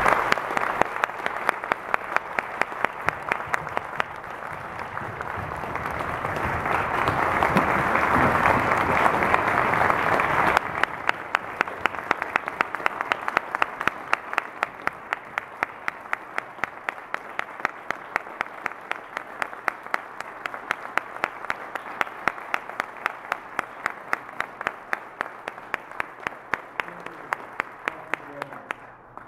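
Audience applauding, swelling to a peak about eight seconds in and then slowly dying away, with one person clapping close by in a steady beat of about three loud claps a second.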